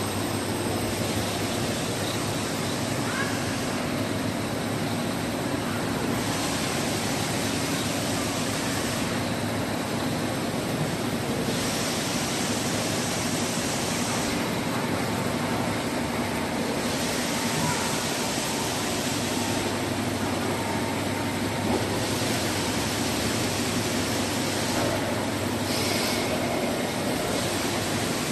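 U-shaped drinking straw carton packing machine and the straw machinery around it running: a steady mechanical din. The hiss on top thins out for about two seconds roughly every five seconds.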